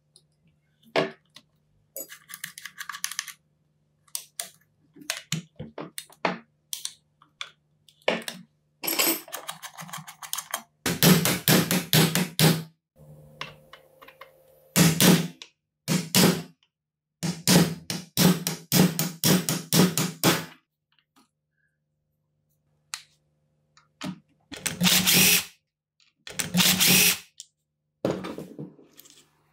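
Hand tools working screws out of a demolition hammer's metal handle and housing: a hex key and a screwdriver turning, with clicks, metal scraping and parts being handled, in several bursts of rapid clicking separated by quiet pauses, over a faint steady low hum.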